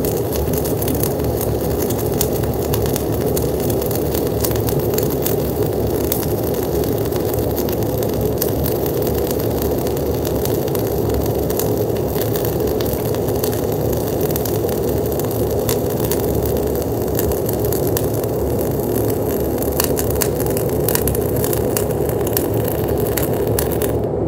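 Gas-shielded flux-cored welding arc (0.045 in Bohler Diamondspark 52 RC wire under 75/25 gas, at 24 volts and 360 in/min wire feed) burning steadily through a cap pass, a continuous crackle with fine spatter ticks. The arc cuts off right at the end.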